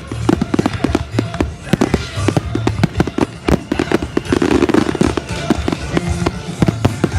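Display fireworks going off in rapid succession, a dense run of sharp bangs and crackles, over the display's accompanying music.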